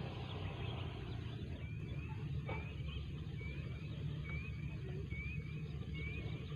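A bird repeating a short, high, rising chirp, mostly in pairs about every second, over a steady low outdoor rumble.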